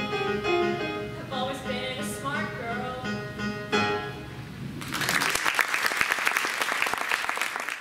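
A young female singer holds the final notes of a musical-theatre song over electric keyboard accompaniment. About five seconds in, the song ends and an audience breaks into steady applause.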